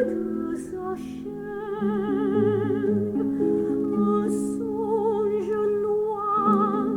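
A record played on a Thorens TD-190-2 turntable through KEF Q300 loudspeakers: a melody of long held notes with wide vibrato over sustained lower chords.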